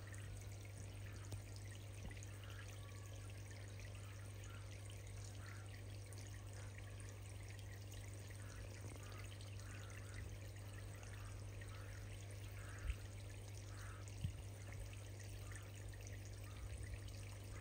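Faint, steady trickle of moving water in a koi pond, from the aeration and filtration running, with a steady low hum underneath.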